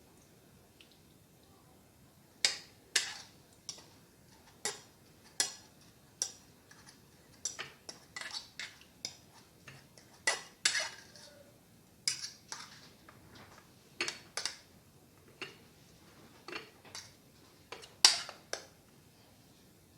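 A metal utensil clinking and tapping against a dish and sieve while juice is strained. The clinks are sharp and irregular, about one to two a second, starting a couple of seconds in.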